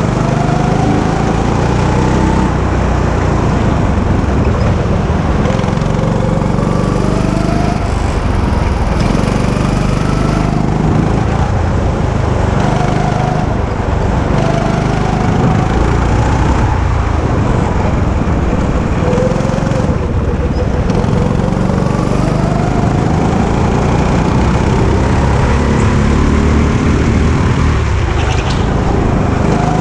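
Go-kart's small petrol engine running under throttle, its pitch climbing again and again as the kart accelerates out of corners and dropping back, over a heavy low rumble of wind and vibration on the onboard microphone.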